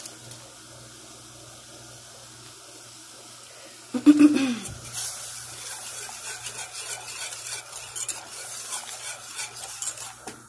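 Wire whisk beating a béchamel sauce of milk, flour-butter roux and cheese in an aluminium saucepan, stirring it as it heats to thicken. It starts about four seconds in with a sudden loud scrape, then goes on as quick, uneven scraping and swishing of metal wires against the pan. Before that there is only a faint steady hum.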